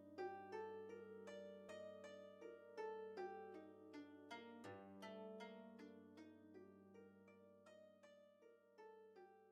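Quiet background music: a run of plucked-string notes, each ringing and dying away, over a held low tone, gradually fading out.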